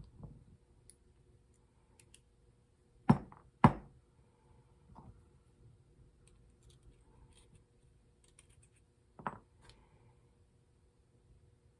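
Hard objects being handled and set down, giving a few sharp knocks and faint clicks: two loud knocks about three seconds in, half a second apart, and another near the end.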